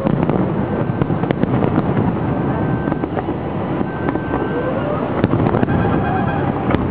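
Fireworks display: a dense, continuous run of bangs and crackles from bursting aerial shells, with a few brief whistles.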